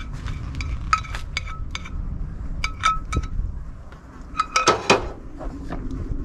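Repeated metallic clinks and taps of a strainer and utensil against a bowl as hot custard for ice cream is strained, each clink ringing briefly at the same pitch, with a louder burst of scraping and clattering about three-quarters of the way through.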